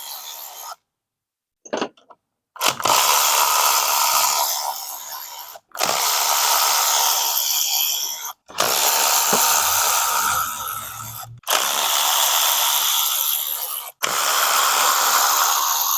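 A power tool with a 10 mm socket spinning out the side cover bolts of a Predator 224cc engine. It makes about five separate runs, each a few seconds long, starting loud and tailing off as the bolt backs out.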